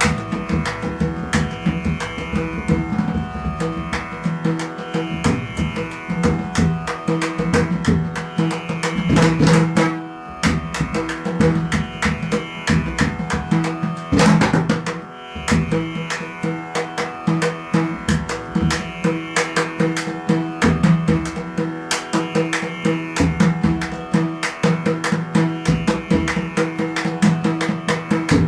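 Indian music: rapid hand-drum strokes over a steady held drone tone, dipping briefly twice.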